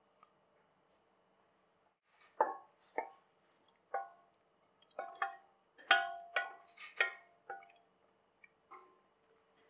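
A wooden spatula knocking against the sides of a metal pressure cooker while stirring thick curry. About a dozen irregular clinks ring briefly, with the busiest and loudest run in the middle.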